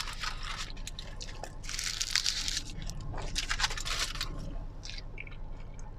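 Aluminium foil wrapped around a shawarma crinkling in a few short bursts as it is handled.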